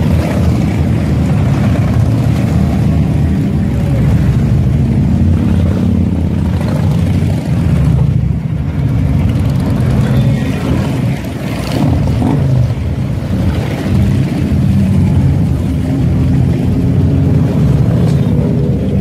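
A group of big cruiser motorcycles riding past one after another, their engines a steady low drone.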